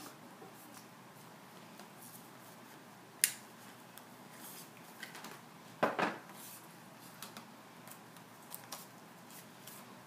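Sharp plastic clicks and knocks from a laptop power adapter being handled and fitted together, with one loud click about three seconds in and a double knock about six seconds in.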